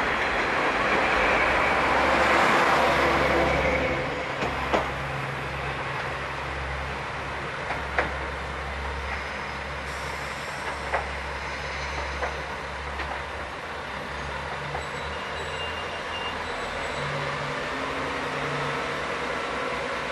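KiHa 40-series diesel railcars: a train runs close past for the first few seconds with a loud rush of wheel and rail noise, which then falls away. A diesel railcar's low engine drone continues as it creeps in slowly, with a few sharp clicks from the wheels.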